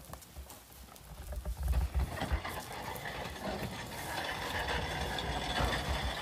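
Casket being slid and settled onto the metal rails of a graveside lowering device: rattling, scraping metal that builds up about two seconds in, with faint high squeals. Gusty wind rumbles on the microphone underneath.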